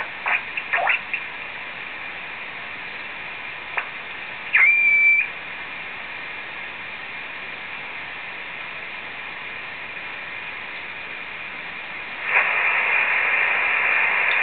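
Dancom R203 shortwave receiver being tuned across the 20-metre band, its speaker giving steady static hiss. Brief chirps come as signals are tuned past near the start and again about four seconds in, then a steady heterodyne whistle for about half a second. A louder, rushing signal comes in about twelve seconds in.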